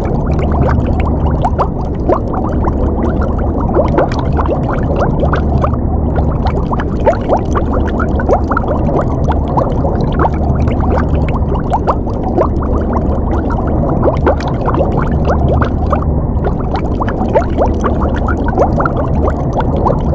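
Underwater ambience: continuous bubbling, a dense stream of small bubble blips over a low, steady rumble.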